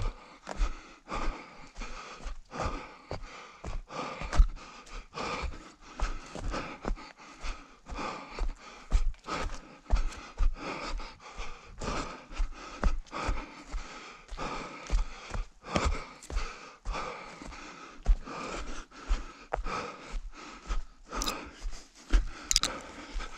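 A runner panting hard, with a steady beat of footfalls about two a second.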